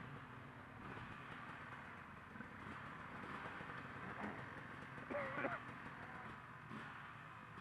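Faint dirt bike engines running on the trail, with a brief wavering high-pitched call about five seconds in.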